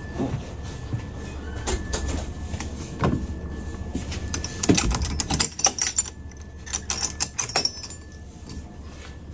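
Clicks, knocks and rattles of things being handled and bumped while walking through an air-conditioned train coach, densest around the middle, over a steady low hum and a faint high steady tone.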